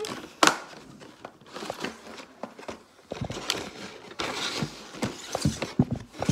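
Handling noises on a tabletop: a sharp knock about half a second in, then scattered light clicks, taps and rustling as clear plastic packaging trays of gingerbread pieces and a cardboard box are moved about.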